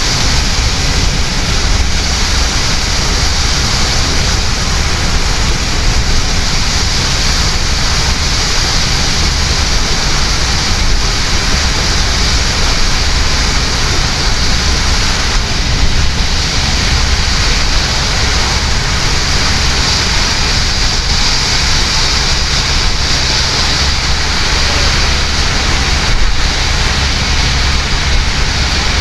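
Heavy rain hitting a taxi's roof and windscreen, heard from inside the cabin over a steady rumble of tyres on the wet road and the engine.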